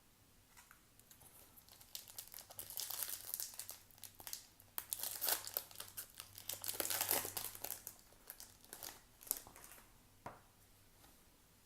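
Foil wrapper of a baseball card pack being torn open and crinkled, a dense crackle with sharp clicks from about two seconds in that dies down near the end.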